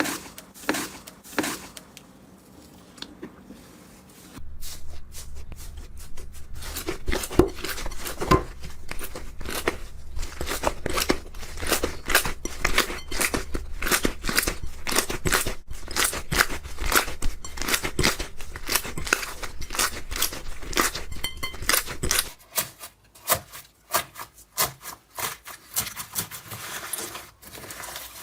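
Slime being squeezed and pressed by hand, giving many quick sharp crackles and pops. They come thick and fast from about four seconds in over a low hum, then thin out near the end.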